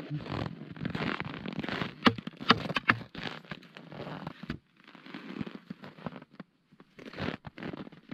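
Crunching and scraping in snow, with several sharp knocks in the first three seconds: boots and hand tools (an ice chisel and a shovel) worked around a hole in the ice.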